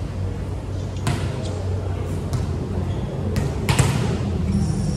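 Volleyballs being struck and hitting the floor: several sharp slaps in a row, the loudest about three and a half seconds in, echoing in a large gym over a steady low hum.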